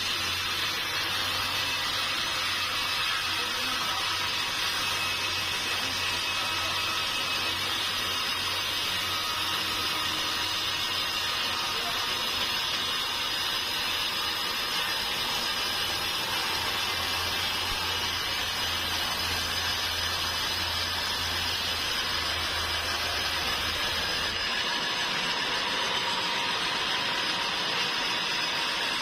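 Sawmill machinery running steadily: a dense, even hiss with a low hum underneath that drops out about 24 seconds in.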